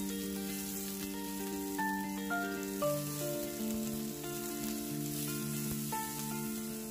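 Diced red onion sizzling in hot oil in a frying pan as it is stirred with a plastic spatula, with a light background melody of held notes playing over it.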